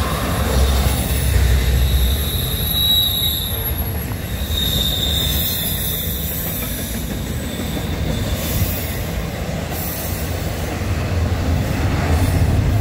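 Norfolk Southern double-stack intermodal freight cars rolling past, their wheels rumbling steadily on the rails, with high-pitched wheel squeal during the first five seconds or so.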